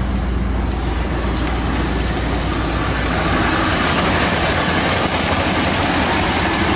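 Chevy 350 small-block V8 in a 1990 G30 RV idling steadily on a test run after a water pump replacement. It gets a little louder about three seconds in.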